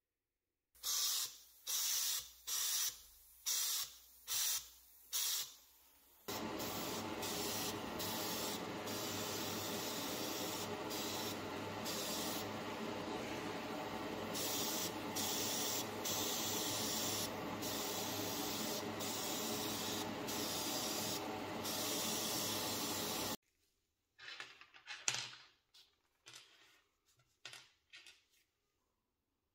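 About six short bursts of hissing air, then the steady hiss of a powder coating spray gun for about seventeen seconds, cutting off suddenly. Near the end, light clicks of small rusty screws being handled.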